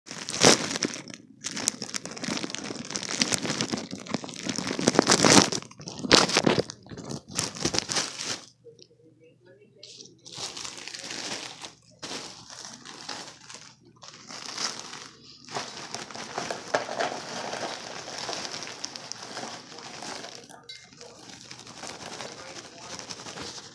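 Crinkling and rustling of handled material: loud and dense for about the first eight seconds, then softer and patchier.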